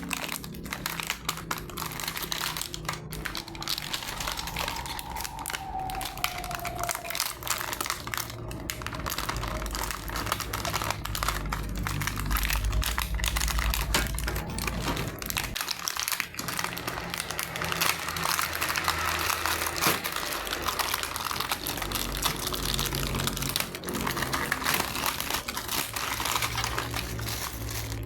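Plastic packaging crinkling and rustling as a universal TV wall bracket is unboxed by hand, with frequent small clicks and knocks from the parts being handled.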